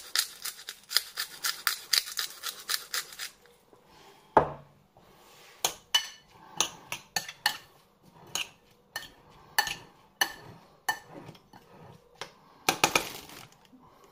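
A seasoning mill grinding over the salsa in a quick run of clicks for about three seconds, then a spoon clinking and knocking against the bowl as the salsa is mixed, with one heavier knock about four seconds in.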